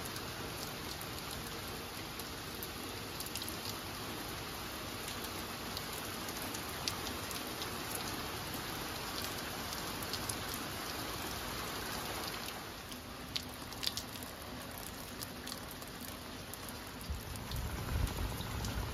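A rain shower falling on the sea and the boat: a steady hiss with scattered drop taps. It eases about two-thirds of the way through, and a low rumble comes in near the end.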